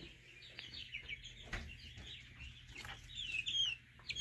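Young brooder chicks peeping: many short high chirps, some dropping in pitch, busier and louder from about three seconds in, with a couple of faint knocks.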